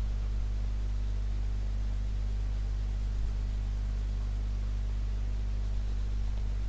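Steady low electrical hum with a constant hiss, unchanging throughout; no distinct strokes or other sounds stand out above it.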